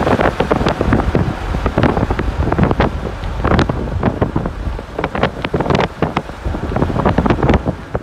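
Wind buffeting the microphone of a camera on a moving vehicle, a steady rush broken by many sharp gusts, with vehicle noise underneath.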